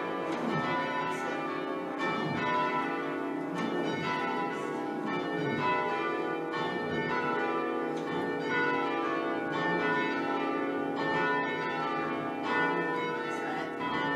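A ring of church bells being rung by hand in change ringing. The bells strike one after another in a continuous sequence, and each keeps sounding over the next.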